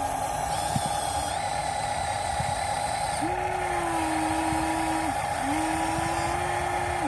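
Electric motors of radio-controlled construction models whining: a steady hum underneath, with a motor spinning up and holding its speed twice, about two seconds each, in the second half.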